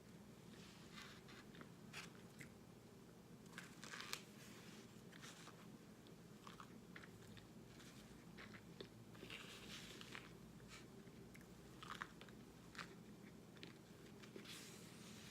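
A person crunching and chewing microwave-baked cornstarch chunks in the mouth: irregular crisp crunches, a few louder bites about four, ten and twelve seconds in.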